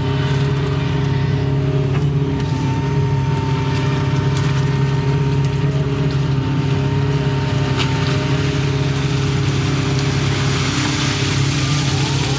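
Excavator's diesel engine and hydraulics running steadily as it digs, an even engine hum with a faint high whine over it and a few sharp clicks.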